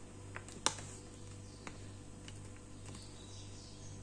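A few light, separate clicks and taps, the sharpest about a second in, over a faint steady low hum.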